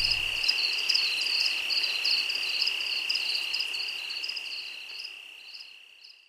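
Crickets chirping: a steady high trill with quick chirps above it, fading out gradually over the last few seconds.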